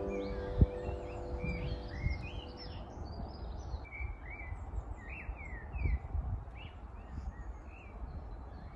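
Several small birds chirping and singing in short, repeated phrases over a steady outdoor background hum. The last piano notes fade out right at the start.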